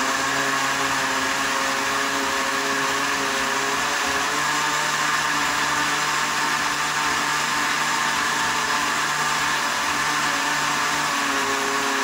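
Countertop blender running steadily at speed, its motor holding one even pitch, as it blends recycled cooking oil, dissolved lye and salt into a soap batter.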